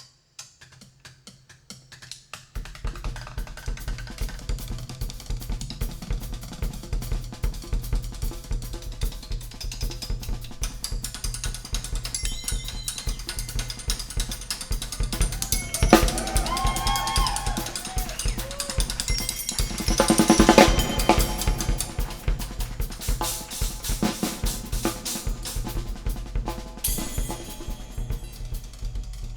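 Music played through a sound system during a sound check: a steady drum-kit beat with heavy bass, coming in about two and a half seconds in.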